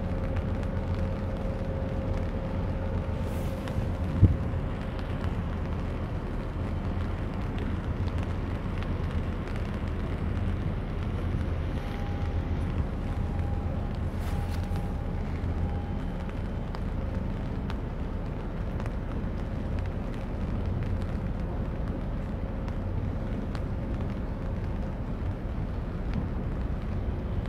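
Steady low rumble of a large container ship under way, with a faint steady hum over it. A single sharp knock about four seconds in.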